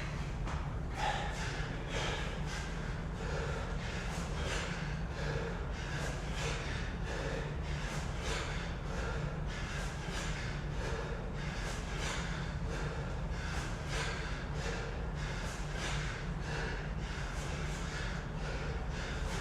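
Heavy, rhythmic breathing of an athlete working hard through a workout: sharp forced breaths about three every two seconds, over a steady low hum.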